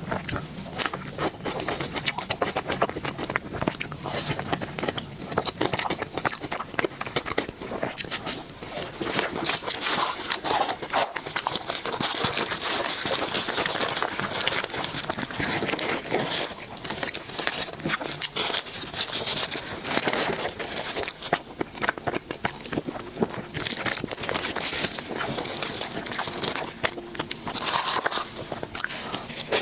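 Close-miked eating sounds of a dessert being bitten and chewed: a dense, continuous stream of small wet clicks and crackles.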